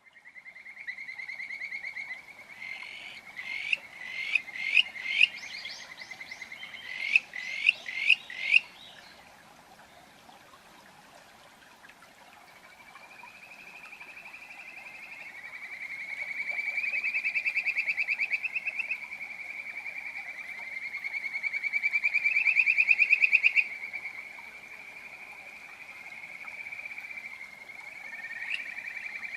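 Kajika frogs (Buergeria buergeri) calling. A short trill opens, followed by two runs of short, rising, whistled notes. Then come long, rapid trills that swell and creep upward in pitch, loudest about halfway through and again at about two-thirds.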